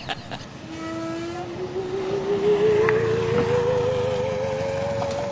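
Electronic sound effect: a single wavering, theremin-like tone that starts about a second in and slowly rises in pitch.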